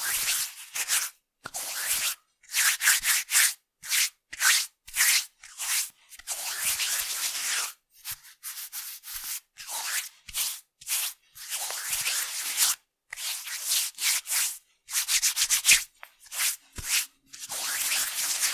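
Two hands rubbed together palm against palm, making a dry, hissing friction sound. It comes in short spells broken by brief silent pauses: some spells are quick back-and-forth strokes, others are longer continuous rubs of about a second.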